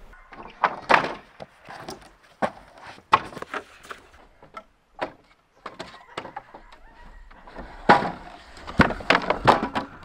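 A string of sharp knocks and thuds, spaced irregularly, with a quick run of loud wooden bangs and clattering near the end, like wooden pallets being knocked about.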